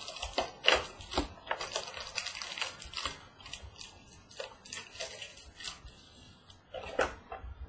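Trading-card packs being torn open and handled: repeated crinkling and rustling of wrappers and cards, busy at first and thinning out later.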